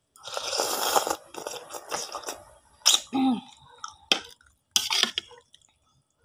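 A person slurping a mouthful of hot instant noodles in a long hiss, then chewing with wet mouth clicks. Near the end comes a short puff of breath, blowing on the next forkful to cool it.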